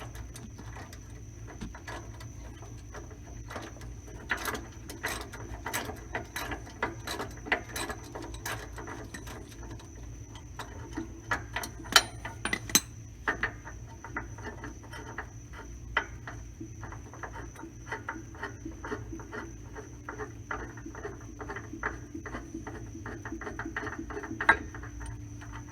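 Hand ratchet wrench clicking in quick runs, with scattered metallic clinks and knocks from tools on the car's suspension; a couple of sharp clanks about halfway through are the loudest.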